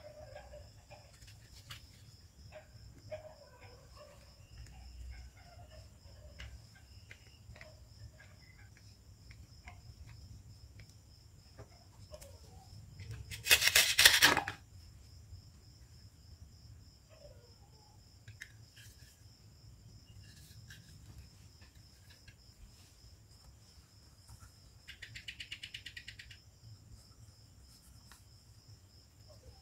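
Plastic toy fruit being handled and cut apart with a plastic toy knife: soft plastic clicks and rubs, with one loud velcro rip about halfway through as a toy red pepper's halves are pulled apart, and a quieter rasping rip later on. A faint steady high whine sits underneath.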